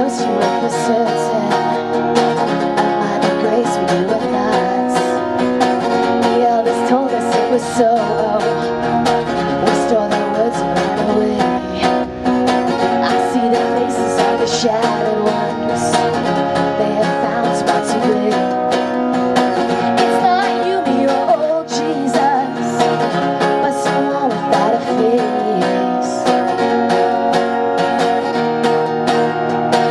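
Live band music: plucked acoustic string instruments playing steadily, with a voice singing.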